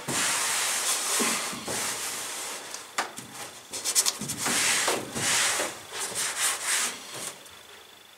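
Hands sliding and pressing over a sheet of thin carpet laid against the fuselage wall, a run of irregular swishing rubs that die away near the end.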